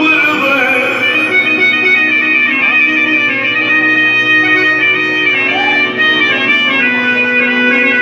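Live Arabic music: an instrumental passage with a melody held on long steady notes, no singing.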